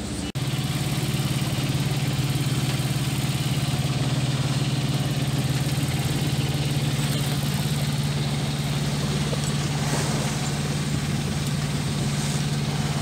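A Sadler 26 sailing yacht's inboard diesel engine running steadily while motorsailing, a constant low hum over the rush of wind and water.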